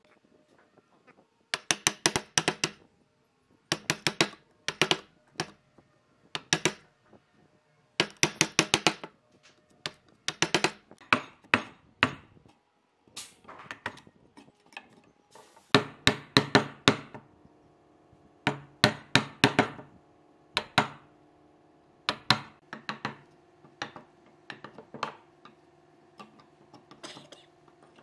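Wooden mallet striking a steel chisel that chops into wood, clearing out the end of a routed groove in a wooden post. It comes in quick runs of sharp blows, separated by short pauses.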